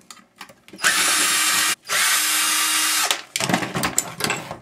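A power drill runs twice, about a second each with a short break between, while a house fan's motor is being opened. Clattering knocks of metal parts follow near the end.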